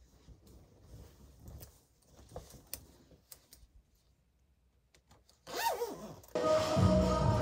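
Faint rustling of a fleece hoodie being pulled on, with the scratch and clicks of its zipper being fastened. About six seconds in, loud background music comes in and covers it.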